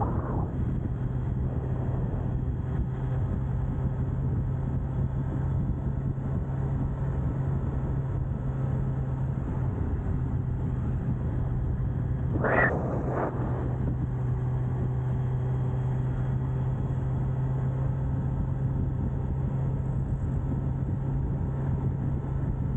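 Kawasaki Z900's stock inline-four engine running at a steady cruise, its drone holding one pitch. About halfway through, a brief sound sweeps up in pitch and falls back.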